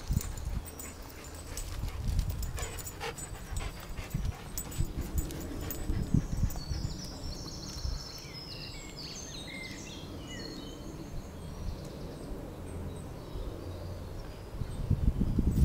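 Greyhound panting after a run, with wind rumbling on the microphone.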